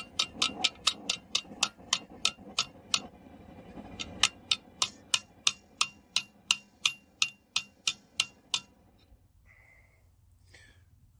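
Rounding hammer striking a hot steel bar to bend it around a socket-extension jig clamped in a vise, forming the curled handle of a forged fork. Sharp ringing blows come about four a second in two runs, with a short pause about three seconds in. The blows stop a couple of seconds before the end.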